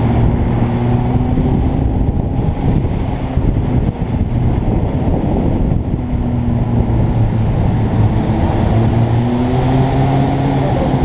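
Motorcycle engine running under heavy wind rush on the microphone while riding, the engine's pitch shifting up and down with speed.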